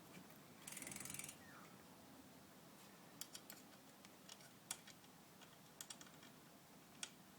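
Faint, irregular clicks and light taps of small parts and tools being handled while BMX cranks are put back together, with a brief soft rustle about a second in.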